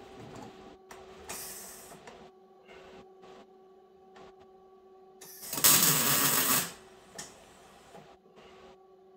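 Wire-feed (MIG) welder tacking and stitch-welding a steel reinforcing plate onto a truck frame rail: several short bursts of arc, with one longer, louder weld of about a second just past the middle.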